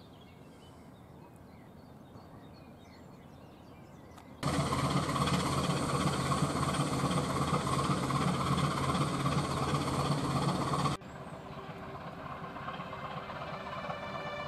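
Diesel engine of a river cargo barge running as it passes, a steady drone with a low hum. It cuts in abruptly about four seconds in after faint birdsong and cuts off just as abruptly some six seconds later, when music comes in.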